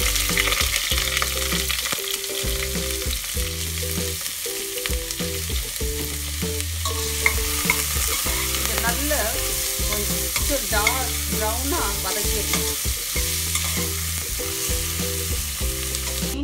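Chopped onions and curry leaves sizzling in hot oil in a stainless steel pot, stirred and scraped with a metal slotted spoon. The sizzle is loudest at the start, just after they go in, and slowly dies down.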